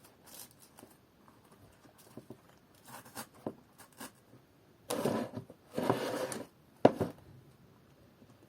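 Hands handling craft materials: light taps and small clicks, then two loud rustling, scraping bursts about five and six seconds in, followed by a single sharp knock.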